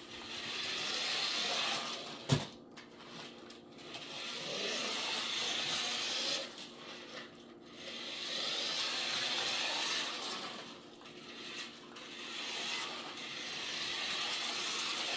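Battery-powered toy RC truck's small electric motor and plastic gears whirring as it drives across a wooden floor, in runs of a couple of seconds with short pauses between. A sharp knock about two seconds in.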